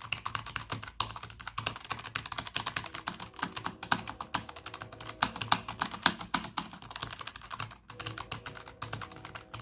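Typing on a Logitech G915 mechanical keyboard with low-profile red linear switches: a fast, continuous run of keystroke clacks, with brief pauses about a second in and near the end.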